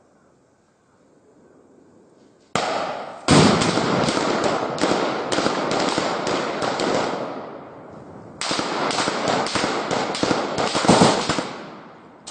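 Gunfire in a firefight. After a quiet moment, rapid shots break out about two and a half seconds in and go on for several seconds before tailing off. A second long string of rapid shots follows, and another volley starts at the very end.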